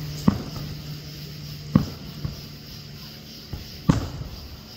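Aerial firework shells bursting: three sharp bangs roughly one and a half to two seconds apart, with a couple of fainter pops between them.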